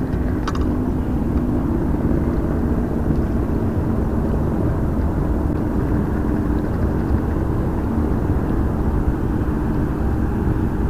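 A steady low engine hum with rumbling noise underneath, and a single short click about half a second in.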